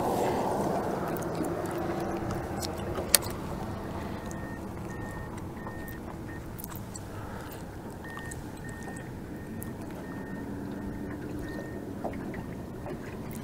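Steady low noise of a small fishing boat on open water, with one sharp click about three seconds in and a faint high beep repeating about twice a second from about four seconds in.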